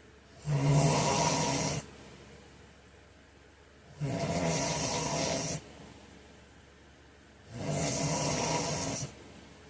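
A man snoring in his sleep: three snores, each about a second and a half long, coming evenly about every three and a half seconds.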